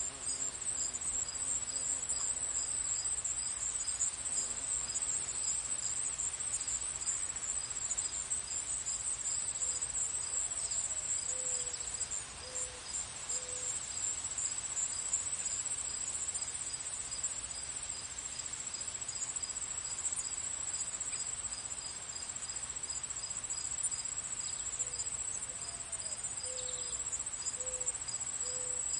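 Crickets trilling in a steady high chorus, with a second insect chirping at an even pace beneath it. Twice, a bird calls a short run of four or five low notes, the second note rising.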